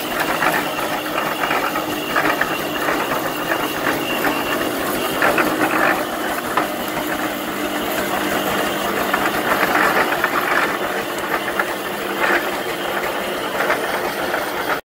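Steam traction engine driving, its gears and running gear clattering steadily.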